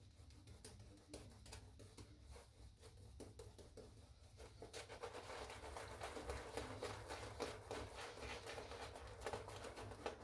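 Shaving brush working lather onto the face: a faint, rapid, wet scrubbing that grows louder about halfway through.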